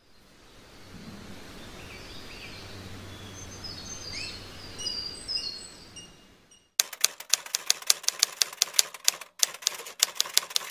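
Bird chirps over a soft outdoor hiss, then, a little past halfway, a rapid run of typewriter keystroke clicks, about six a second with short pauses, the typing sound laid under text appearing on screen.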